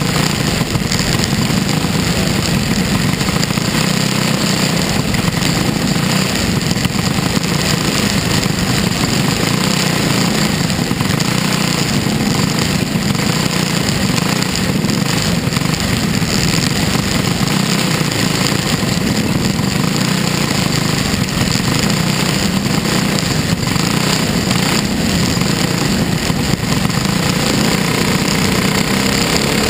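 Dirt-track race car's engine running hard at racing speed, a loud steady drone heard from inside the cockpit, its note starting to climb near the end.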